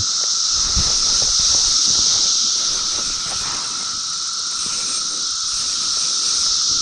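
A steady high hiss of creek-side outdoor ambience, with faint irregular low rustling beneath it.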